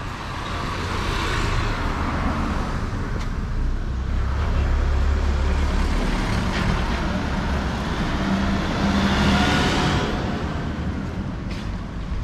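Road traffic: motor vehicles driving past one after another, engine rumble and tyre noise swelling and fading, with a second pass near the end.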